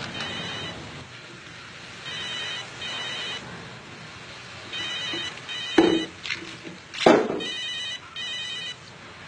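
Telephone ringing in double rings, ring-ring then a pause, four times over. Two sharp thumps between rings, about halfway through, are the loudest sounds.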